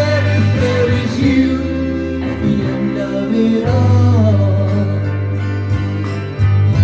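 Recorded pop backing track with a man's voice singing long, wordless held notes over it.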